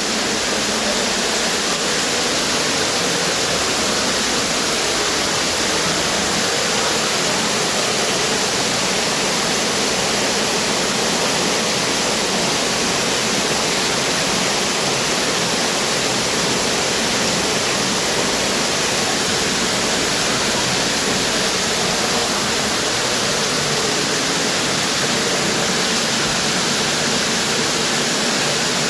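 Tropical waterfall running steadily: an even, unbroken rush of falling water.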